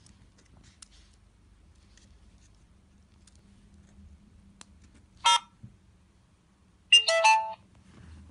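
Built-in speaker of a Bluetooth speaker fidget spinner giving electronic prompt tones as it is switched on: a short beep about five seconds in, then a brief chime of several notes about a second and a half later. A few faint plastic clicks come from handling it before that.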